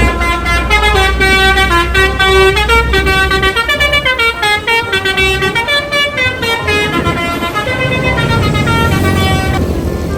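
Indonesian bus "telolet" horn, a set of musical air horns, playing a stepping multi-note melody over the rumble of the bus's engine. The tune stops near the end.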